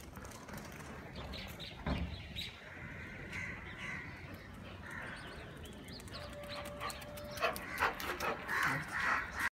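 Birds chirping and calling, with scattered clicks and knocks, one heavier knock about two seconds in. A short steady tone sounds for about a second a little after six seconds in.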